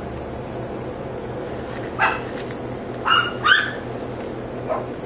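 Dogs barking: one bark about two seconds in, two quick barks around three seconds, and a softer short bark near the end, over a steady low hum.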